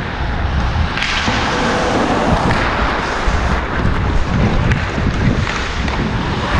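Ice hockey skates carving and scraping on the ice in surges, under a steady rush of wind over the GoPro's microphone.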